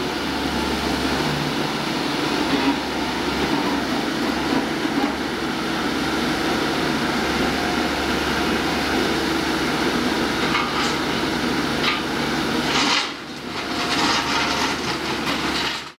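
Komatsu PC138-8 excavator's diesel engine running steadily with a low hum, over the scraping clatter of track ballast stones worked by its bucket. The sound cuts off suddenly at the end.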